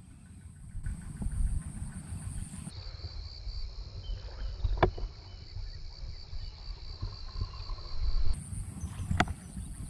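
Insects chirping in a steady, fast-pulsing high trill over a low rumble, with two sharp clicks about five and nine seconds in.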